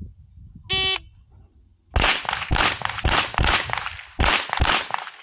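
An electronic shot timer gives its short start beep. About a second later comes a string of roughly seven rapid gunshots, about half a second apart, with a brief pause near the end before the last two.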